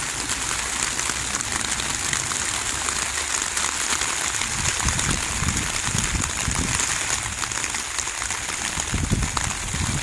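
Steady outdoor hiss, strongest in the high register, with a few soft low rumbles.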